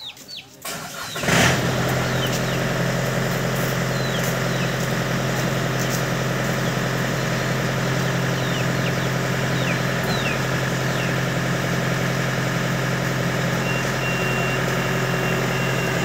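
Yanmar combine harvester's diesel engine starting about a second in, then idling steadily. Faint bird chirps sound over it, and a high beeping starts near the end.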